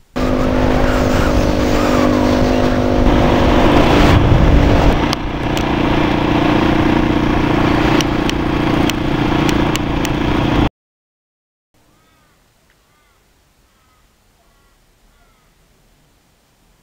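Dirt bike's single-cylinder four-stroke engine running steadily at speed, heard from a camera mounted on the bike with heavy wind rush over the microphone and a few sharp clicks. It cuts off suddenly about eleven seconds in, leaving only faint bird chirps.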